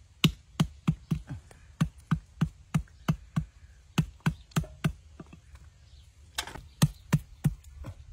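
Large knife repeatedly striking an eel held on a wooden tree-stump chopping block: sharp knocks, about three a second, with a short pause a little past halfway.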